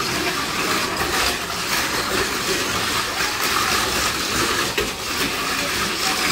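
Tamiya Mini 4WD toy cars running around a plastic race track: a steady whir of small electric motors, with a few clicks of the cars against the track.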